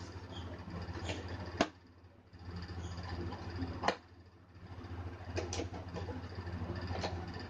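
Handling noises as unboxed drone parts and packaging are moved about: a few sharp clicks, the two loudest about a second and a half and about four seconds in, over a steady low hum.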